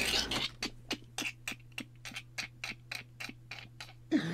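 Suspense sound effect: rapid, evenly spaced ticks, about four a second, over a steady low hum.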